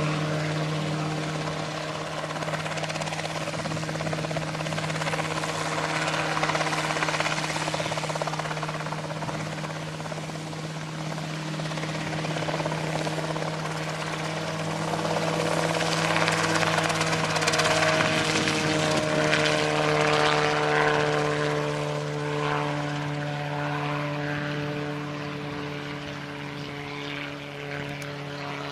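Homemade ultralight helicopter in low flight: its engine runs at a steady pitch under the whir of the rotor blades, growing louder and fading again as the machine moves about.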